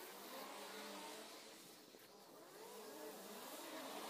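Faint engine sound, its pitch wavering up and down.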